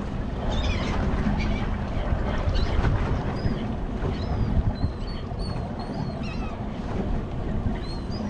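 Wind and choppy water washing around a drifting boat, with seabirds giving short high calls over and over.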